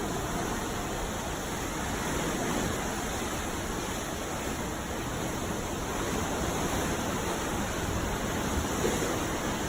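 Sea waves: a steady rush of surf that swells slightly twice.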